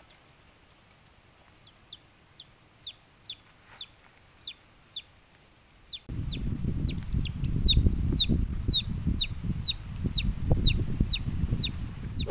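A chick peeping over and over, a high sharply falling peep about twice a second. About six seconds in, a loud low rumble of noise starts suddenly beneath the peeps.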